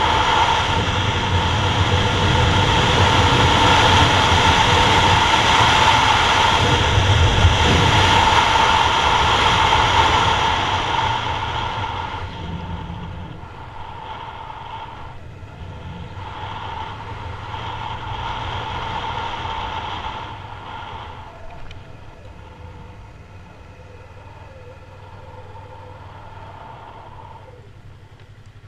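Yamaha MT-03's 321 cc parallel-twin engine running under way with wind rush, loud for the first dozen seconds, then quieter as the bike slows, dropping again about twenty seconds in.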